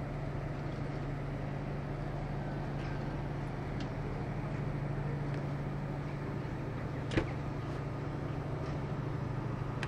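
A steady low engine drone, unchanging, with one sharp click about seven seconds in.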